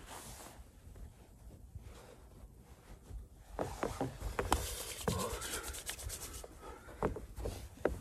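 Bare hands scraping up and packing snow, a rasping hiss with short crunches that get louder and quicker in the second half.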